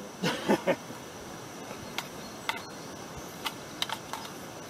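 A few sharp, separate metallic clicks as an AR-15 rifle in .50 Beowulf is handled before firing, after a brief pitched sound in the first second.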